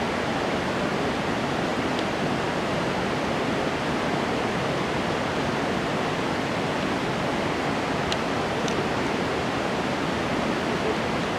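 Steady, even rush of a mountain river's running water, with a few faint ticks about two seconds in and near the end.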